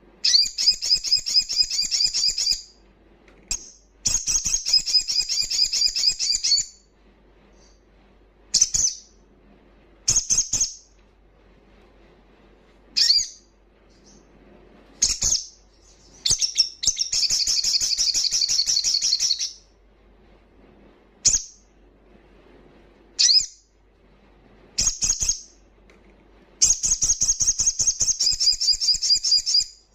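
Male sunbird singing loud, rapid high-pitched trilling phrases of two to three seconds, broken by short sharp chirps and brief pauses.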